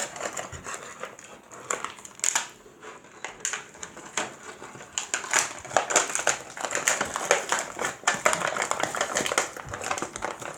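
Stiff plastic packaging crinkling and clicking in irregular bursts as an action figure is worked loose from its tray.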